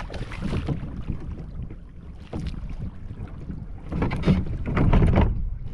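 Wind buffeting the microphone over open ocean, with water lapping against the kayak's hull. A louder rush comes about four seconds in and lasts just over a second.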